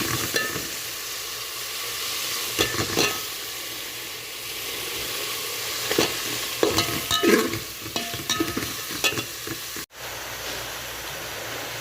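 Bottle gourd pieces frying in hot oil and spice paste in a cooking pot, with a steady sizzle. A utensil knocks and scrapes against the pot now and then as the gourd is stirred.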